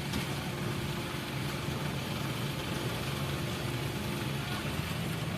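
Heavy diesel engine of a concrete pump running steadily during a concrete pour, a constant low hum with no breaks.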